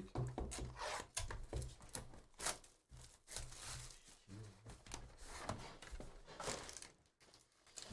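Gold-bar-shaped cardboard trading-card box being handled on a desk mat, its outer sleeve slid off: a run of short rustles, scrapes and light knocks.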